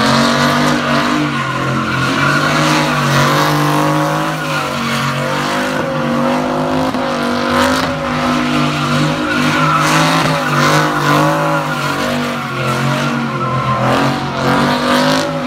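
A car doing a burnout: its engine is held at high revs while the tyres squeal and screech continuously, the squeal wavering up and down in pitch.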